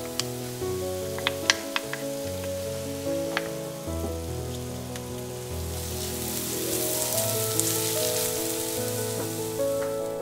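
Chopped onion, garlic and ginger frying in oil in a nonstick wok, a sizzle that grows louder from about halfway as the mix is stirred, with a few sharp clicks in the first few seconds. Soft background music with held notes plays throughout.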